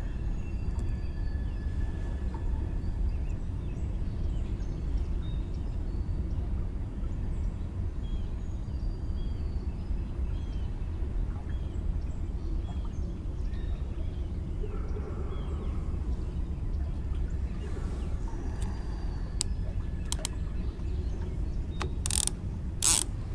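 Steady low outdoor rumble with faint bird chirps through the middle. Near the end come a few sharp clicks from the baitcasting reel being handled.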